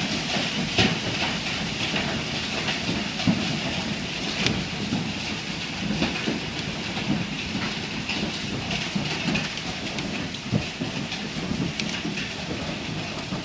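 Heavy hail falling: a dense, steady clatter of hailstones, with a few louder single hits standing out.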